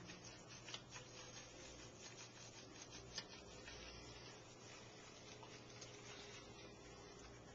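Faint rubbing and scattered small clicks of a Shih Tzu puppy being hand-washed in a kitchen sink, with a sharper click about three seconds in.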